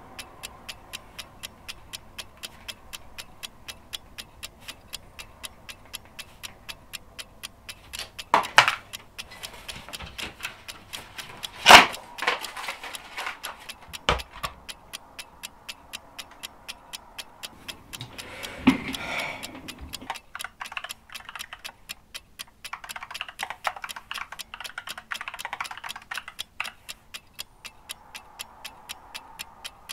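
Steady fast ticking like a clock, about three ticks a second, with a few sharp knocks a third of the way in and a burst of rapid computer-keyboard typing late on.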